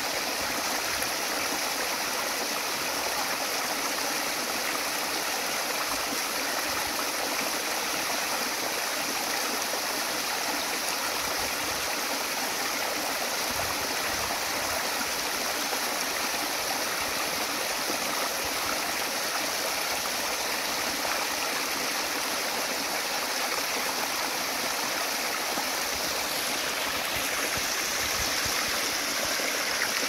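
Water of a small waterfall running and splashing down a mossy rock face: a steady, even rush.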